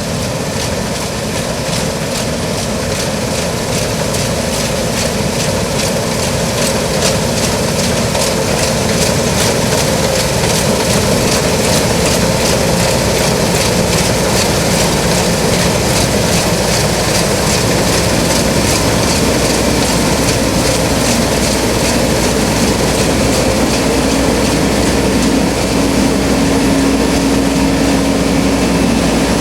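New Holland CX8090 tracked combine harvester running steadily under load while harvesting rice: engine and threshing machinery with a dense mechanical rumble. A steady hum grows stronger near the end.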